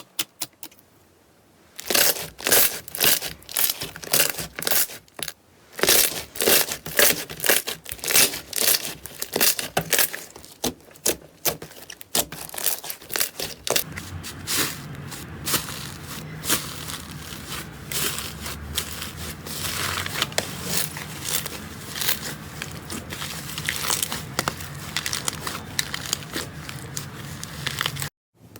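Crunchy slime being squeezed and pressed, giving a run of sharp crackles, several a second, after a short quiet start. About halfway through it turns into a denser, continuous crackling.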